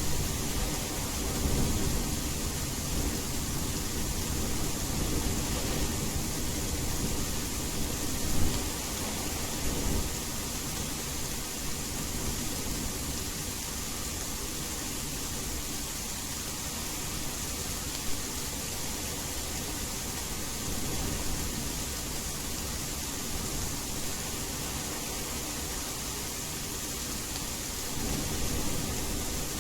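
Steady rain hiss with rolling thunder rumbling low under it for the first ten seconds, swelling once about eight seconds in, and rumbling again near the end.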